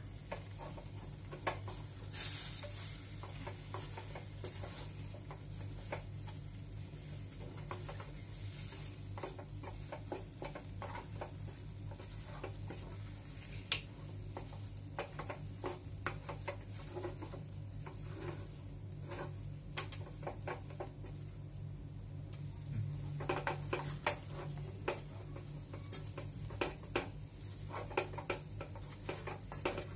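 Wooden spatula stirring and scraping thick semolina dough around a stainless steel pot, with scattered light knocks against the pot. Two sharper knocks come near the middle, and the scraping grows busier in the last third. A steady low hum runs underneath.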